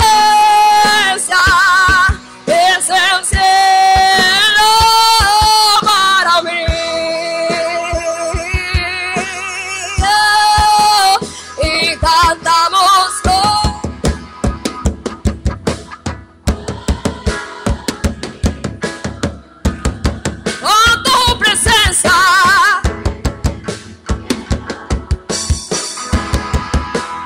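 Live worship band playing, with a woman singing long, held, wavering notes over drum kit, bass and keyboard. About halfway through the voice drops back and a steady drum beat carries the song, before the singing comes in again.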